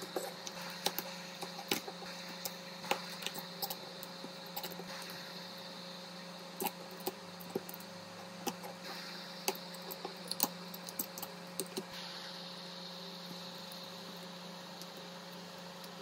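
Small metal repair tools clicking and tapping irregularly against a phone during a back glass repair, over a steady electrical hum; the tapping stops about twelve seconds in.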